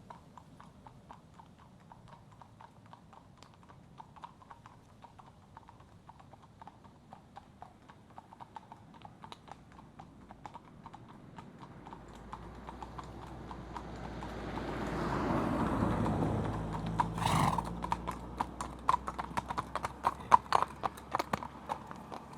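A horse trotting, its hooves clip-clopping in a steady rhythm, faint at first and growing louder as it approaches. It swells about two-thirds of the way through, and then come sharp, close hoof strikes.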